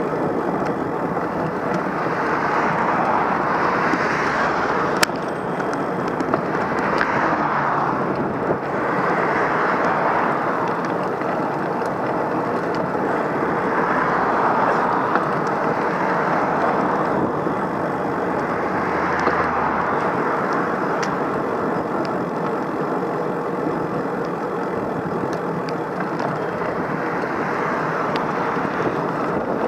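Road traffic going by: a steady rushing of tyres and engines that swells and fades every few seconds as vehicles pass.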